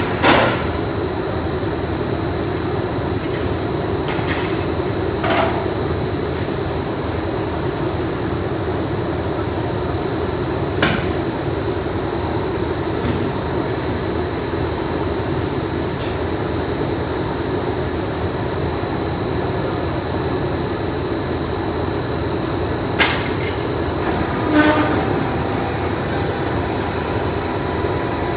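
Factory machinery running steadily, with a constant high whine over a dense rumble and a few sharp clanks scattered through it.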